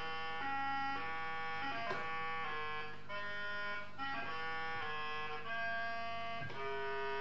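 Instrumental music: a melody of held notes, each changing about every half second, over a steady low drone.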